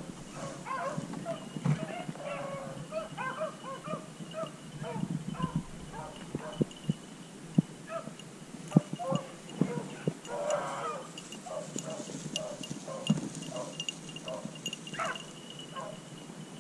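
A pack of beagles baying as they run a cottontail rabbit's scent trail: many short, overlapping hound voices, with a few sharp knocks close by.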